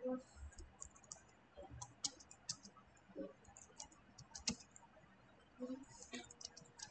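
Typing on a computer keyboard: faint, irregular keystroke clicks in quick runs.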